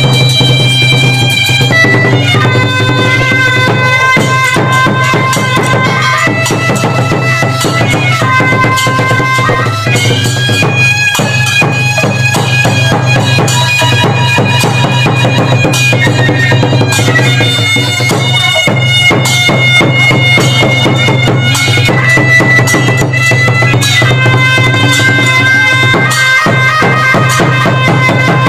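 Traditional Khmer dance music: a nasal reed wind instrument plays a winding melody over a steady low drone and a driving drum beat.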